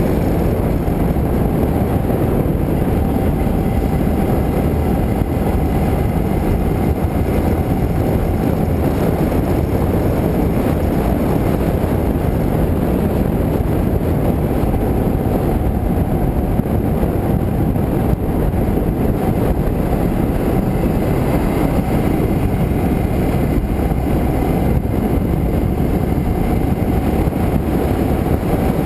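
Motorcycle engine running at a steady cruising speed, with wind rushing over the GoPro's microphone, a dense even rumble that does not change.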